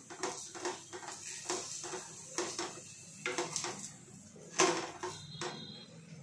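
Wooden spatula knocking and scraping against a frying pan as a wheat adai is pressed and turned over, a string of irregular taps with the loudest a little past four and a half seconds in.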